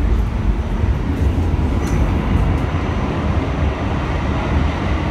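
Interior running noise of an R46 subway car in motion: a steady, loud low rumble of the train on the track.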